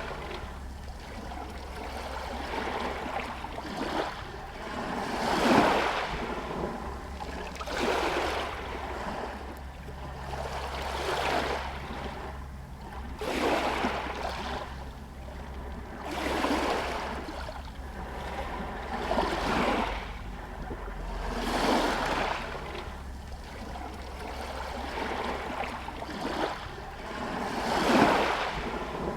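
Small Adriatic Sea waves lapping against stones at a pier, each wash swelling and falling away every two to three seconds, over a steady low rumble.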